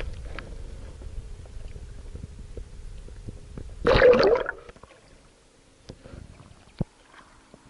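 Water moving around an action camera held underwater, heard through its housing: a low rumble of water stirred by hands releasing a fish. About four seconds in comes a brief loud gurgling rush of air bubbles, followed by a much quieter stretch with a few faint clicks.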